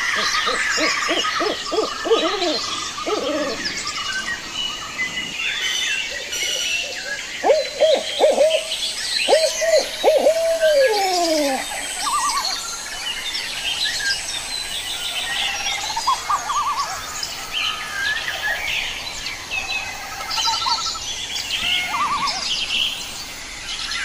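Owl hooting in two runs of quick hoots: one in the first few seconds, another from about seven to eleven seconds in that ends in a long falling note. Small songbirds chirp and twitter throughout.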